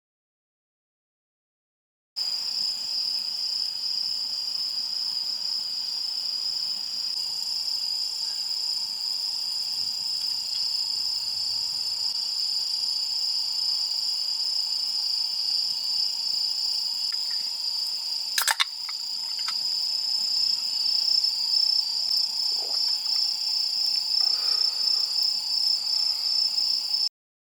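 Crickets trilling steadily in a high, fast-pulsing chorus, starting after about two seconds of silence. A single sharp click comes about two-thirds of the way through, with a few faint taps near the end.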